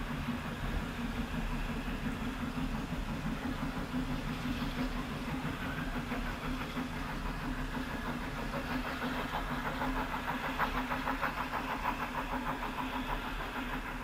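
Small Henschel steam locomotive HC 5 working a train away into the distance, its exhaust beats coming as a fast, even chuffing rhythm that stands out from about nine seconds in, over a steady low hum.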